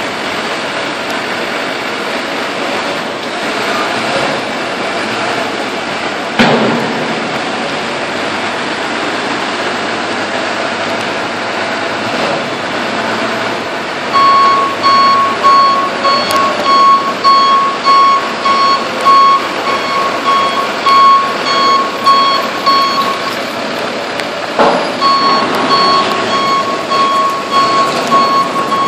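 Steady industrial background noise with a loud knock about six seconds in and another late on; about halfway through, a vehicle backup alarm starts beeping steadily at a little under two beeps a second, stops briefly, then resumes.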